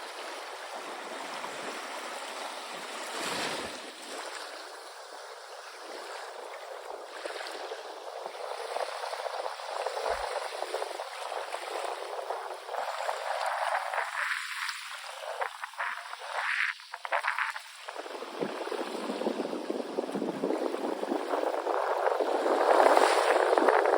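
Small sea waves washing onto a beach, the surf swelling and ebbing, with a louder wash building near the end.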